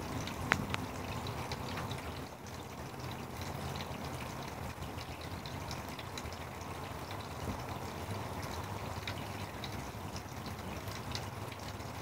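Steady rain falling, with scattered drops ticking close by. One sharper tick about half a second in is the loudest sound.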